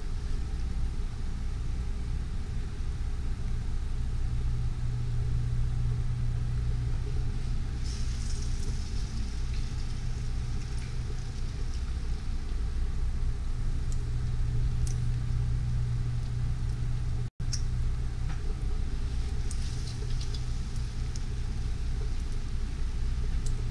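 Battered chile rellenos frying in a skillet of hot oil, over a steady low hum. The sizzle brightens twice, about a third of the way in and near the end, as more battered peppers are laid into the oil, with a few light clinks of utensils.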